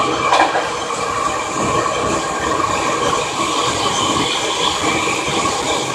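Seibu 30000 series electric train running at a steady speed: a continuous rumble of wheels on rail and running-gear noise, with one short knock about half a second in.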